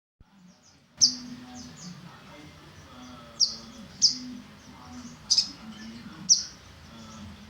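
Olive-backed sunbird calling: sharp, high chirps, five loud ones and several fainter ones between, over a steady low hum.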